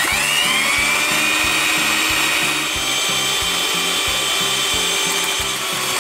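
Electric hand mixer switched on, its motor whine rising quickly at the start and then running steadily as the beaters whip fresh cream.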